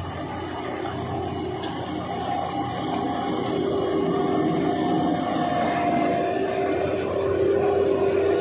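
Diesel engines of a Case IH sugarcane harvester and a New Holland 3630 tractor running steadily, growing louder over the last few seconds.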